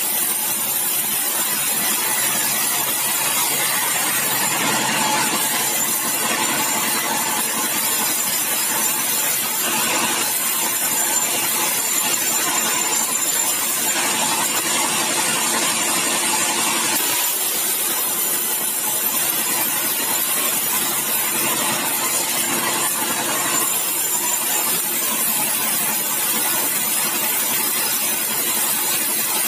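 Large sawmill band saw running and cutting through a bengkirai (Shorea laevis) hardwood beam, a steady, unbroken sawing noise with the machine's hum under it.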